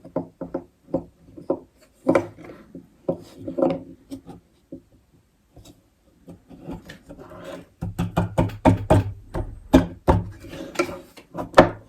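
Plastic back plate of a Yakattack CellBlok box being worked down into its side grooves: irregular scraping, rubbing and clicking of plastic on plastic, busier in the last few seconds as it seats snugly.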